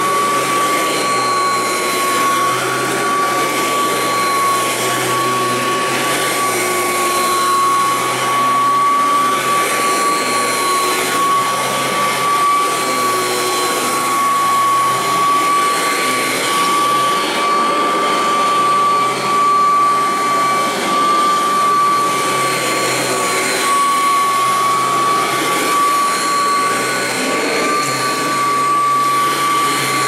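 Royal 883 upright vacuum cleaner running while being pushed over carpet: a steady high motor whine over a loud rush of air.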